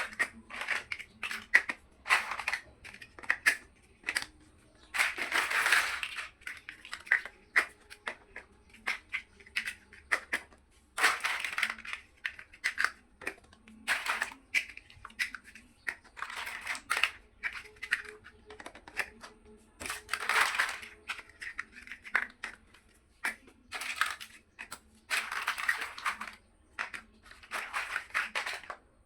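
Plastic building bricks clicking and snapping together in quick, irregular taps, with several longer noisy spells of about a second each.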